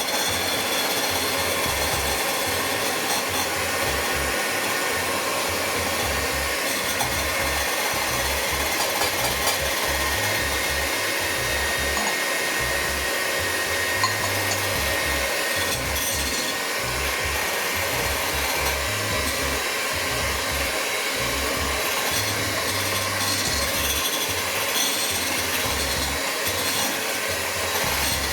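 Electric mixer running steadily, beating cake batter of eggs, sugar, butter and oil.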